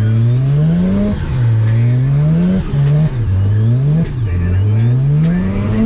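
A drift car's engine revving hard in repeated cycles. It climbs in pitch and drops back sharply about four times, with one brief hold near the middle, as the driver works the throttle through a drift.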